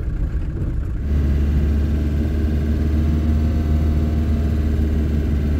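Camping-car engine and road noise heard from inside the cab while driving: a steady low drone with tyre hiss that steps up louder about a second in, then holds.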